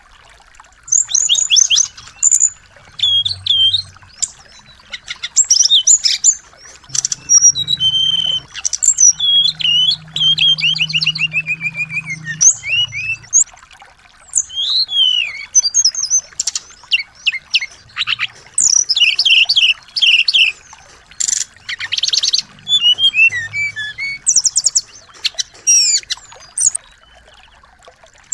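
Small songbirds singing high-pitched chirps and fast trills, with runs of quick falling notes, in bursts with short pauses between them.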